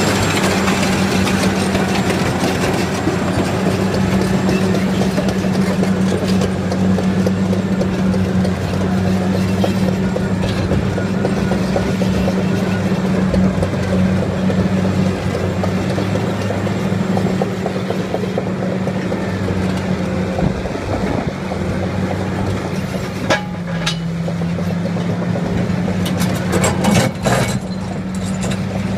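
Caterpillar crawler dozer's diesel engine running steadily under load as its rear ripper shank tears through rocky ground. The engine note drops a little about three-quarters of the way through, followed by a few sharp clanks.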